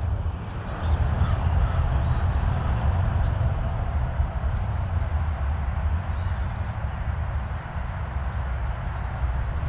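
Outdoor ambience: a steady low rumble under a wash of noise, with small birds chirping faintly and often.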